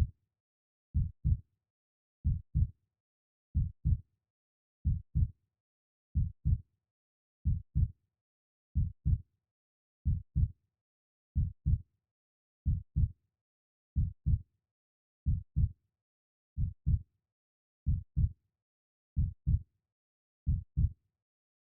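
A slow, steady heartbeat: paired low thumps (lub-dub) repeating about every 1.3 seconds, roughly 46 beats a minute, with silence between beats.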